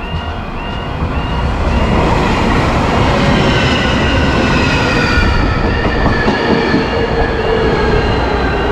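Japanese electric train passing over a level crossing: loud rumble and rail noise with a whine that slowly falls in pitch. The crossing's warning bell dings about twice a second at the start, is drowned out while the train goes by, and is heard again near the end.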